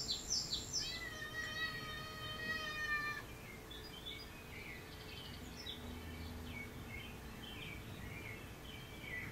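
Bird calls from nature footage playing on a television: a run of quick falling chirps at the start, one long even-pitched call lasting about two seconds, then scattered short chirps.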